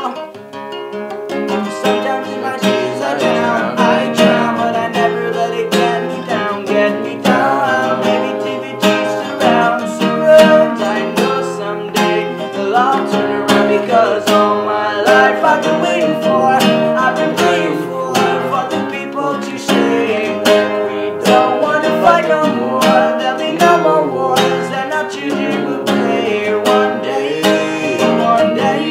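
Acoustic guitar played continuously, with strummed chords and picked notes in a song's accompaniment.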